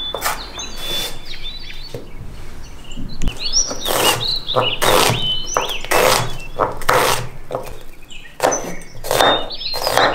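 Chef's knife chopping carrot and then onion on a wooden cutting board, strokes coming about twice a second with a short pause about two seconds in. Birds chirp throughout.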